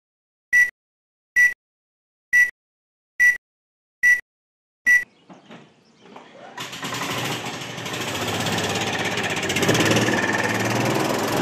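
Film-leader countdown: six short, high beeps, evenly spaced a little under a second apart. About six and a half seconds in, a Club Car golf cart's engine comes in loud and running steadily.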